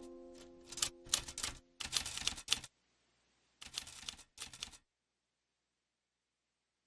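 Typewriter keys clacking in quick runs of strikes, several bursts that stop about five seconds in. The last held notes of music fade out during the first two seconds.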